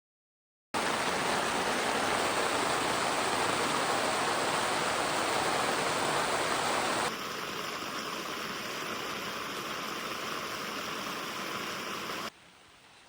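A steady rushing noise starts abruptly about a second in. Around seven seconds it cuts to a thinner, higher hiss, and near the end it drops suddenly to a faint hiss.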